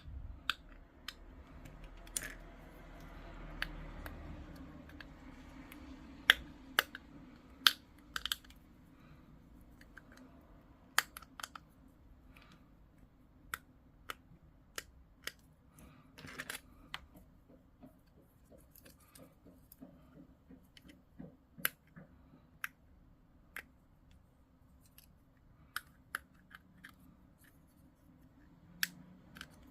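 Hobby sprue cutters clipping small plastic miniature parts: a string of sharp, irregular snips and clicks.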